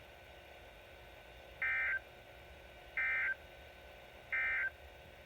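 Emergency Alert System end-of-message data tones on NOAA Weather Radio: three short, identical bursts of warbling digital data about a second and a quarter apart. They mark the end of the special marine warning.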